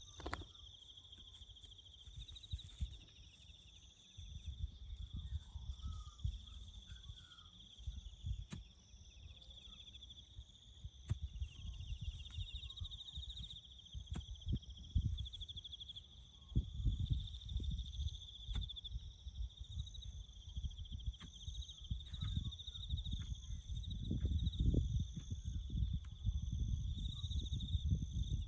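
Crickets chirping in a steady, continuous high-pitched trill, with scattered sharp clicks and a low rumbling noise underneath that grows louder toward the end.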